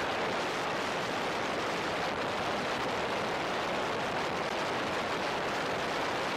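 Steady rushing wind and road noise from a car driving at highway speed, picked up by a camera mounted on the outside of the car. It is an even noise with no distinct engine note.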